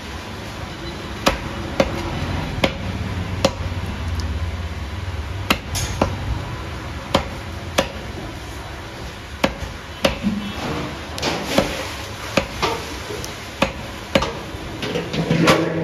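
Butcher's cleaver chopping beef into chunks on a wooden chopping block: a steady series of sharp chops, roughly one a second.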